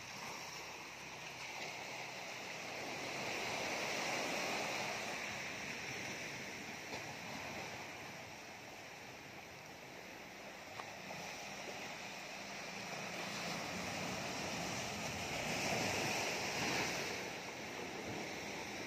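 Small sea waves washing up onto a sandy beach and drawing back, a steady rush that swells and fades slowly, loudest about four seconds in and again near the end.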